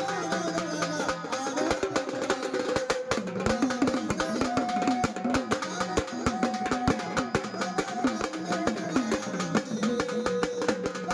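Music: a hand drum playing a fast, busy rhythm under a sustained melody line, with plucked strings.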